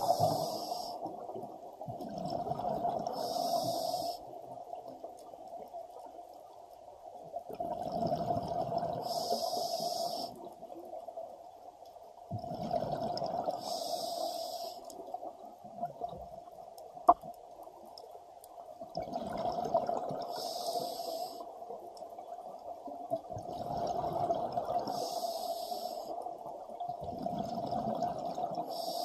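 Scuba diver breathing through a regulator, heard underwater through a camera's dive housing: a breath of hiss and bubbling every four to five seconds over a steady drone, with one sharp click about seventeen seconds in.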